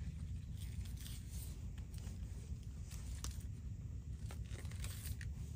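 Spring onions being peeled by hand: soft tearing as the outer layers are stripped off, with a few small crisp snaps scattered through, over a steady low rumble.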